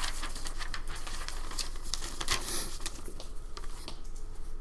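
Light, irregular clicks and taps over a faint steady background hum, with no speech.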